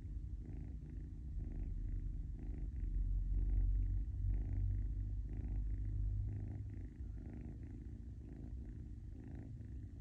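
Very soft snoring: a low, steady rumble with a faint breath sound about once a second. It grows slightly louder, then eases off after about seven seconds.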